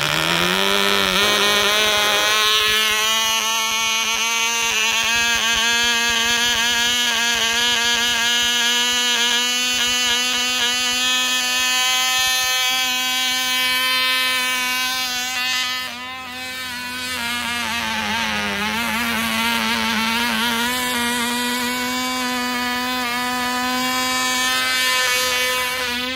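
Cox .049 glow engine on a small model plane running flat out: a high-pitched buzz that climbs in pitch over the first couple of seconds after starting, then holds steady. About 16 seconds in it drops in level and its pitch wavers up and down as the plane is hand-launched and flies away.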